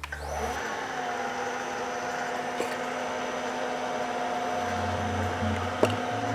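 Milling machine spindle running an end mill, a steady whine with a couple of light ticks.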